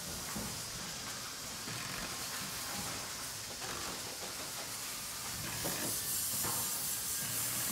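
Dremel Lite rotary tool's abrasive wheel grinding and polishing a metal hammer head: a steady high hiss that gets a little louder near the end.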